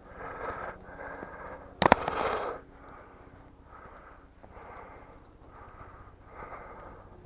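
Heavy, rhythmic breathing close to the microphone, about one breath every second, broken about two seconds in by a sharp double crack, the loudest sound.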